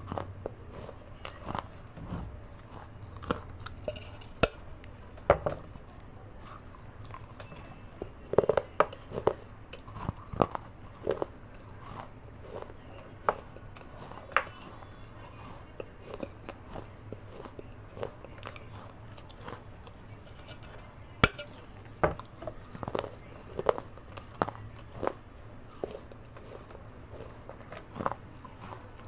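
Close-miked biting and chewing of pieces of a baked clay pot (matka): irregular sharp crunches between stretches of chewing, with one loud crack about two-thirds of the way through.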